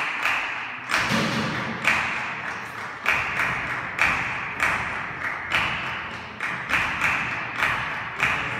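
A group of people clapping their hands in rhythm, sharp claps about two a second in an uneven repeating pattern, performed as a handclapping piece.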